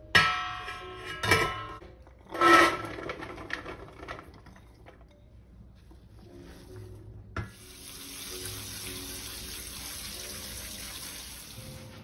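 Stainless steel stockpot and steamer insert clanking twice and ringing, then a short clatter as things drop into the metal pot. About halfway through a kitchen tap clicks on and water runs steadily into the sink for about four seconds, then stops.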